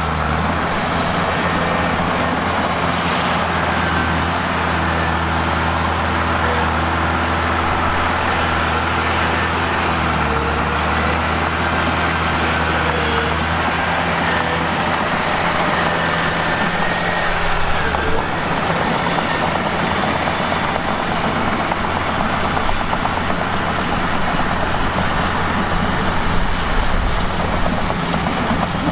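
Mitsubishi bulldozer's diesel engine running steadily, its engine note dipping and shifting a few times, about a third of the way in and again just past halfway.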